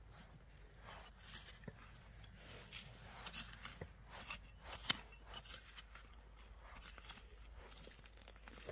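A small hand digging tool scraping and chopping into dry, stony soil to lift potatoes, in an irregular run of gritty scrapes with soil and pebbles crunching. The sharpest strokes come about three and a half and five seconds in.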